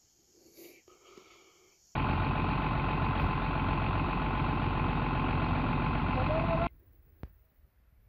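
Diesel engine of a Renault fire truck idling, loud and steady, cutting in suddenly about two seconds in and cutting off suddenly near the end.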